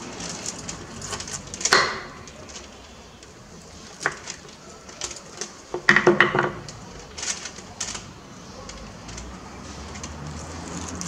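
Knife chopping through grilled pork ribs and striking a wooden cutting board: a few sharp knocks, the loudest cluster about six seconds in.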